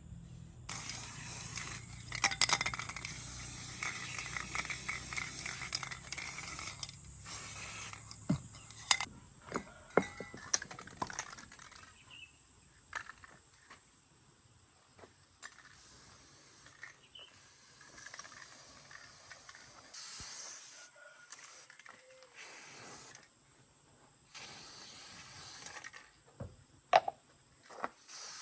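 Scattered sharp clicks and knocks of tools or parts being handled, over a low steady hum that stops about eight seconds in.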